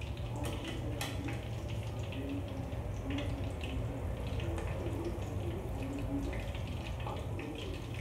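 Cutlets deep-frying in hot oil in an aluminium karahi, sizzling and bubbling steadily, with occasional light clicks as a wire skimmer lifts them out of the oil.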